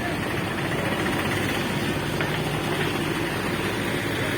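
An engine running steadily at idle, over a steady wash of noise.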